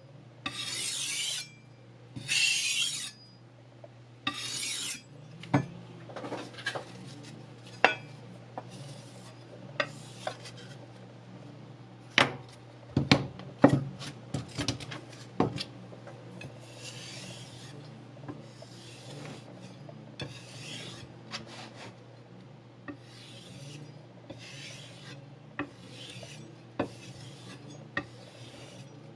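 Kitchen knife blade drawn along sandpaper on a sharpening block: a few loud abrasive strokes at the start, a stretch of sharp clicks and taps in the middle, then softer strokes about once a second.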